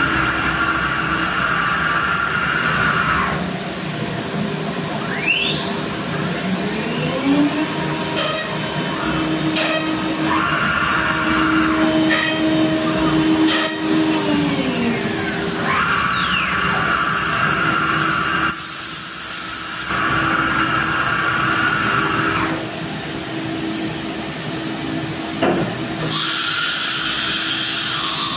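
Power drilling: a CNC router's spindle and a handheld electric drill running together over a steady machine hum. Motor pitches whine up and down as the drills start and stop, and stretches of hiss come and go.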